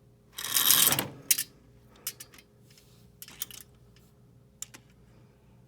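A short rustling scrape about half a second in, then scattered light clicks and taps, over the faint steady two-note tone of a distant outdoor tornado warning siren.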